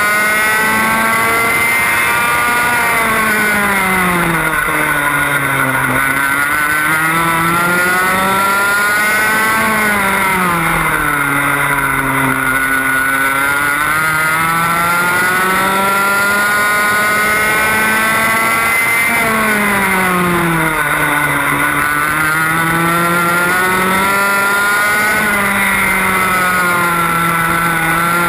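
Onboard sound of a 125cc two-stroke TAG kart engine at racing revs, its pitch dropping three times as the revs fall off into corners and climbing back each time as it accelerates out.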